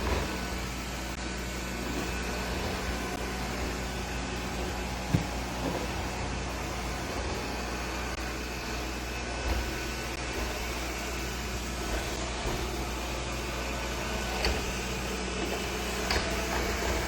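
Steady mechanical hum of a running motor or fan, with a few light knocks, the sharpest about five seconds in.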